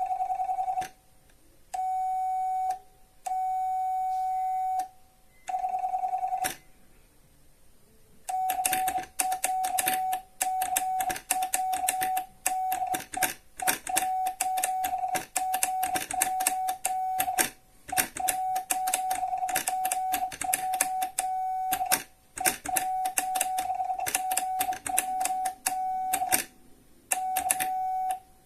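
Telegraph Morse code: a steady beep keyed on and off, with sharp clicks as the key works. It starts with a few long beeps about a second each, then from about eight seconds in turns to a fast run of short beeps and clicks.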